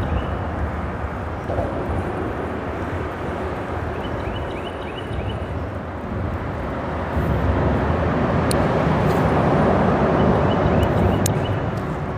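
Freeway traffic on the bridge overhead: a steady rumble that swells louder from about seven to eleven seconds in as a vehicle passes.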